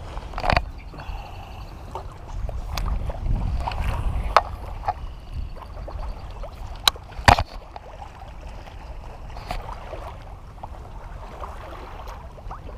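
Wind buffeting the microphone over water lapping, broken by a series of sharp clicks and knocks, the loudest two about seven seconds in.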